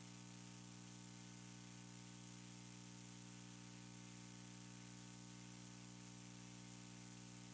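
Near silence: a steady low electrical hum with a faint hiss, unchanging throughout.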